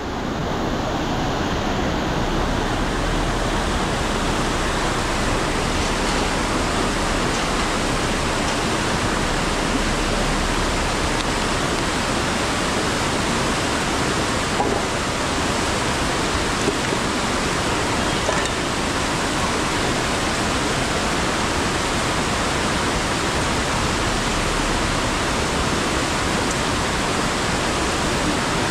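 Fast mountain stream rushing and cascading over rocks close by: a loud, steady rush of water.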